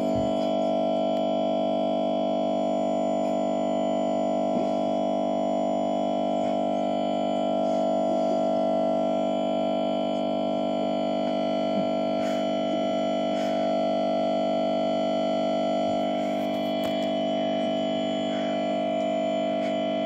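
Computer speakers holding one steady, unchanging buzzing drone: a fragment of the game's audio stuck looping in the sound buffer after Windows crashed to a blue screen.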